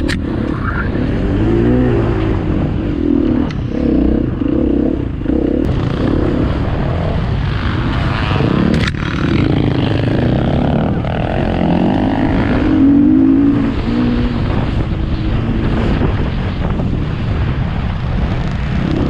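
A 2018 KTM EXC 250 F's single-cylinder four-stroke engine running hard off-road, its revs rising and falling again and again as the throttle opens and closes. A few sharp knocks from the bike come through along the way.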